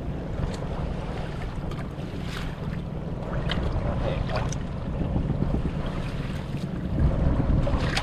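Wind buffeting the microphone over open water, a steady low rumble, with scattered splashes and knocks of water and gear as the trap's catch is worked by hand.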